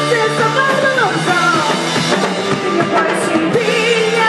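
Rock band playing: a woman singing over drums and electric guitars.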